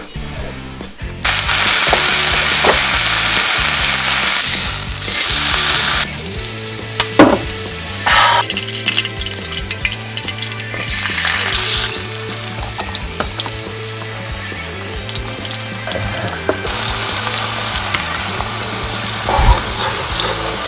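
Food sizzling in hot fat on a griddle pan: bacon frying, with tofu, radish and garlic frying in the rendered bacon fat. The sizzle starts about a second in, then swells and eases, with a few short utensil scrapes around the middle.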